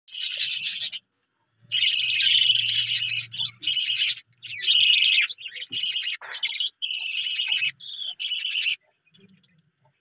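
Budgerigars at a clay-pot nest giving a run of harsh, high chattering calls in about seven bursts of half a second to two seconds, with short gaps between them. The calls stop about a second before the end after one short chirp.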